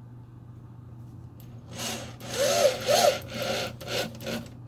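Screw being turned by hand into wood, a rasping, squeaky stroke with each twist, starting nearly two seconds in and repeating two or three times a second.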